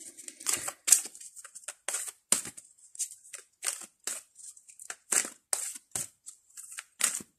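A deck of tarot cards being shuffled by hand: a run of short, crisp swishes of cards sliding against each other, about two a second.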